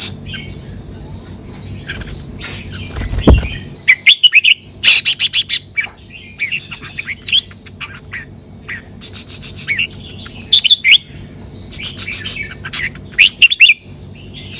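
Caged red-whiskered bulbul singing short, repeated warbled phrases, with several bursts of rapid ticks between them and a low thump about three seconds in.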